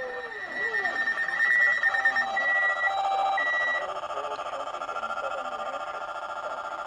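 Emergency alert tones: a falling tone dies away at the start, a few short, higher beeps sound between about two and four seconds in, and a steady electronic two-tone alarm signal runs under them.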